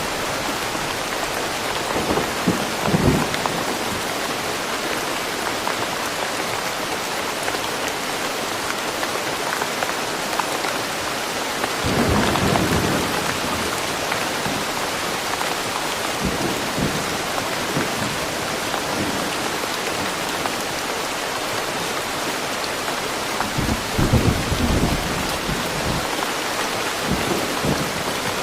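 Steady heavy rain, an even hiss, with brief low rumbles about two, twelve and twenty-four seconds in.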